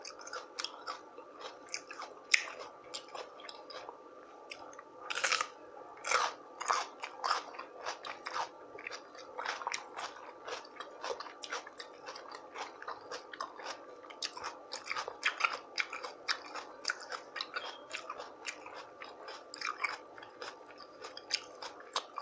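Close-miked chewing of rotisserie chicken and cucumber: wet mouth sounds with many short crunches, the loudest about five to seven seconds in.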